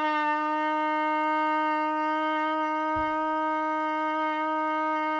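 A trumpet mouthpiece and lead pipe, played without the tuning slide, holding one long note at a steady pitch: a long-tone exercise blown on one big breath with steady air. A soft low bump comes about three seconds in.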